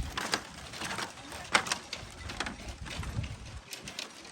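Bamboo bridge slats creaking and knocking underfoot, short irregular clacks and creaks as someone steps across it.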